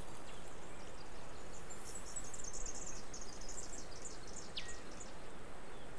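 Riverside bush ambience: a steady hiss under a flurry of short, very high-pitched chirps from about two seconds in to about five, with one clear whistle that falls in pitch near the end of the flurry.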